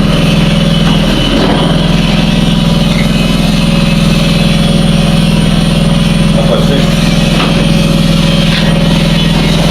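An engine running steadily at an even, unchanging speed, with a loud, constant drone.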